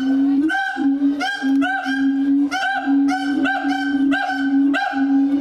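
Siamang giving its loud call: a rapid series of steady, honking notes, each held about half a second, with a run of higher, wavering notes laid over them.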